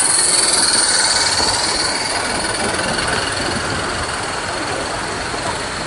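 A train running on rails: a steady rolling noise, with a high squeal that is strongest at the start and fades over the first couple of seconds.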